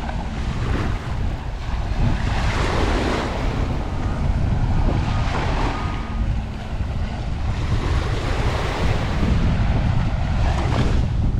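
Waves washing onto a sandy beach, swelling a few times, with wind buffeting the microphone in a steady low rumble.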